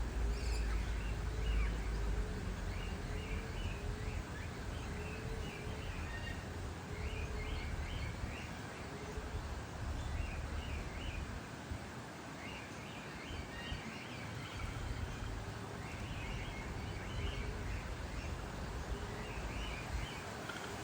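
Eastern rosella calls: short bursts of quick, high chattering notes every second or two. A faint low note repeats a little more than once a second through the first half, over a steady low rumble.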